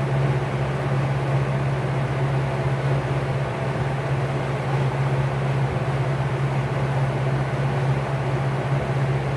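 Vintage Lakewood P-58 box fan motor running a 20-inch LAU 60263801 propeller: a steady low hum with an even rush of moving air.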